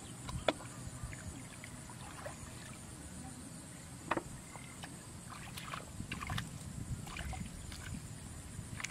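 Hands splashing and sloshing in shallow muddy paddy water while groping in the mud for fish, with scattered small splashes and knocks over a low steady rumble.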